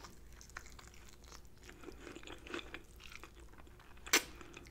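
Close-miked chewing of a battered fried chicken wing, with small crunches of the crisp batter. A single sharp smack of the lips about four seconds in, as the bare bone is pulled out of the mouth.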